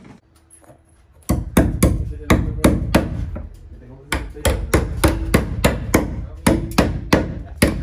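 A claw hammer swung overhead strikes, fastening metal conduit straps to wooden ceiling joists. Sharp, even blows of about three a second begin about a second in, with a short break about four seconds in.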